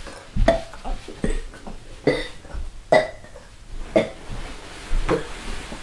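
A person burping over and over: about six short burps, roughly a second apart.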